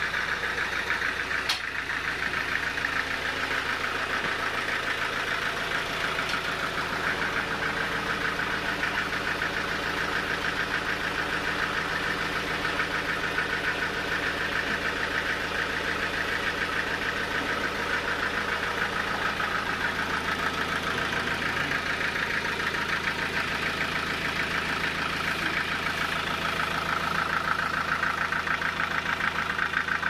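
Stationary diesel engine driving a sawmill, running steadily at a constant speed with a fast, even clatter.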